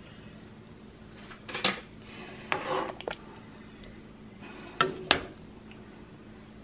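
A spoon knocking and scraping against the side of an enamelled pot while thick stew is stirred: a clink about a second and a half in, a short scraping clatter around three seconds in, and two sharp clinks near the five-second mark.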